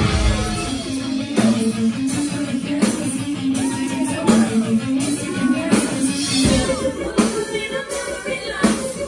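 Live rock band playing loud through a club PA: electric guitar riff and drums keeping a steady beat under sung vocal lines that glide in pitch. The heavy bass thins out about a second in and comes back in full about six and a half seconds in.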